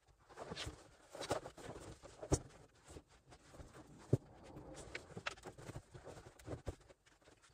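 Upholstered foam sofa cushions being lifted and moved around on the seat base: fabric rustling and soft bumps, with two sharper knocks about two seconds and four seconds in.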